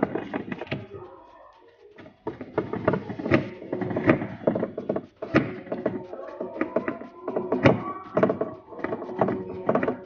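Repeated irregular metallic clicks and knocks of a screwdriver working the mounting bolts of a twin-tub washing machine's new wash gearbox, with background music.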